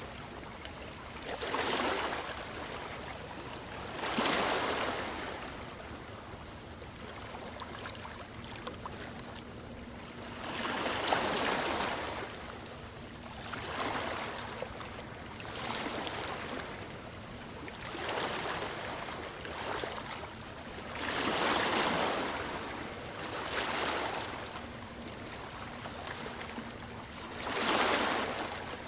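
Ocean surf washing ashore: each wave comes in as a swell of hiss that builds and fades, one every few seconds at an uneven pace, over a steady softer wash of water.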